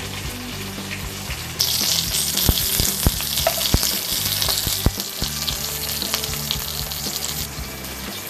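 Hot oil sizzling in a frying pan with leftover bits of fried-fish coating in it. The sizzle grows louder about a second and a half in and eases near the end, with a few light clicks of a metal spatula against the pan.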